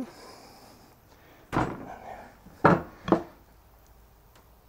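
Knocks on a wooden table and cutting board as a butcher's hand saw and meat are put down: a thud about a second and a half in, then two sharper knocks about half a second apart.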